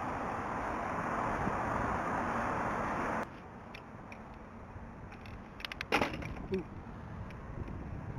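Wind buffeting the microphone of a bicycle-mounted camera while riding, cutting off abruptly about three seconds in. The rest is quieter road ambience with a short cluster of clicks and rattles about six seconds in.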